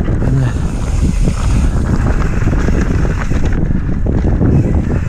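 Wind rushing over a bike-mounted or body-mounted camera microphone during a fast mountain bike descent, mixed with tyre and trail noise from the bike.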